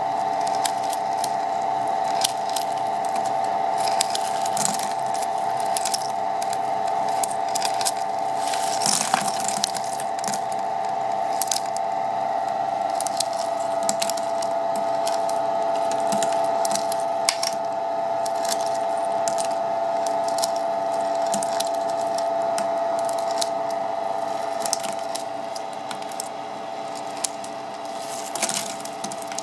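Maja flake ice machine running: a steady machine hum with a constant whine, overlaid by irregular crackling and crunching as ice flakes break off the frozen drum and tumble down the chute.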